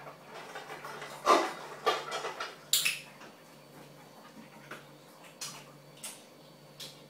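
English bulldog snuffling and snorting at the floor, with a sharp clink about three seconds in and a few light taps after.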